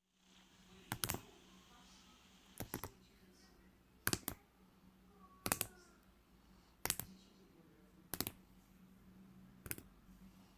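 Slime being pressed and stretched, giving sharp clicky pops in small clusters about every one and a half seconds, over a faint steady hum.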